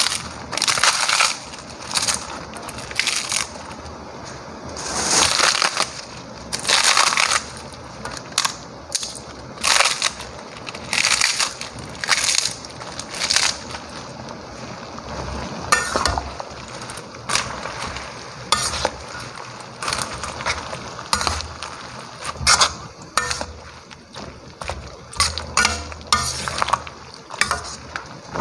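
Crisp sheets of dried bean-curd skin (kembang tahu) being crushed and torn by hand, a long run of irregular crackling crunches. Toward the end, a spatula stirs the cabbage in a metal wok.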